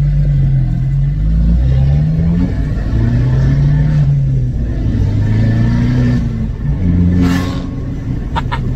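Turbocharged Abarth engine heard from inside the cabin, accelerating with its note rising and dropping back at each gear change. About seven seconds in there is a short hiss from the dump valve as the throttle is lifted, followed near the end by two short high chirps.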